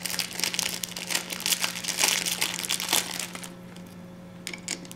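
Plastic packaging crinkling for about three and a half seconds as an antenna is handled out of it, then a few small clicks as its RP-SMA connector is fitted to the meter's port. A steady low hum runs underneath.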